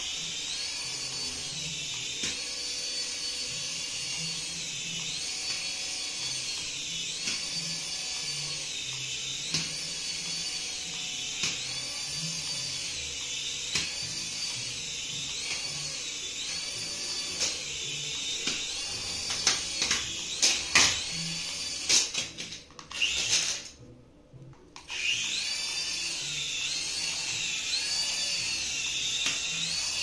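Small toy RC helicopter's electric rotor motors whining at a high pitch that swings up and down every second or two as the throttle changes. A few sharp knocks come about two-thirds of the way through. Then the whine cuts out for about two seconds and spins up again.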